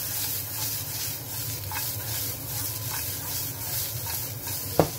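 Julienned carrots sizzling in a frying pan as the pan is tossed to turn them, a steady frying hiss with a single sharp knock near the end.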